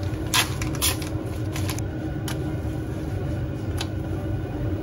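Steady low hum of a kitchen range-hood fan running, with a faint steady tone and a few sharp clicks from the pan and utensils as flatbread is heated in a hot frying pan.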